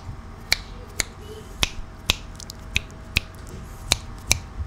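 Repeated finger snaps, about two a second, picked up by a Samson Go USB condenser mic set to its omnidirectional pattern as a test of its all-round pickup.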